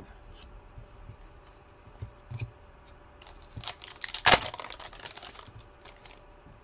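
Trading-card pack wrapper crinkling and being torn open over about two seconds, loudest a little past the middle, with a few light ticks of cards being handled and set down before and after.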